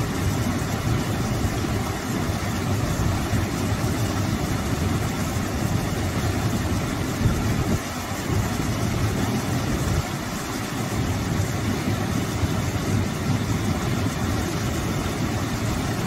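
Small waterfall spilling over a rock ledge into a shallow rocky pool: a steady, deep rush of falling and splashing water.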